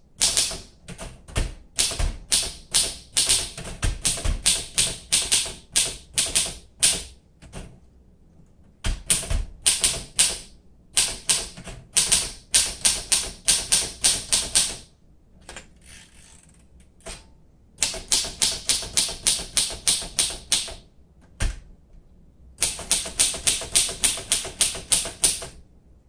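1942 Royal Companion portable manual typewriter being typed on: runs of sharp key strikes, roughly four or five a second, broken by short pauses of one to three seconds.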